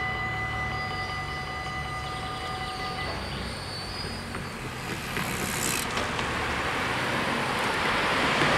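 Level-crossing warning bells ringing steadily while the barriers rise, stopping about three seconds in. Then a car approaches and drives over the crossing, its tyre noise growing louder towards the end.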